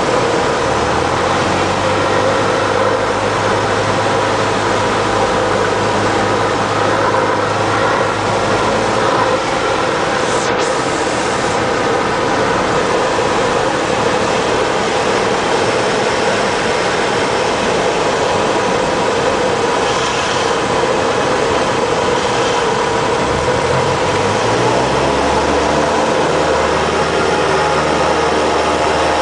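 Engine and propeller drone of a light single-engine plane heard inside the cockpit during approach and landing, a loud, steady noise with a low note that shifts about three-quarters of the way through.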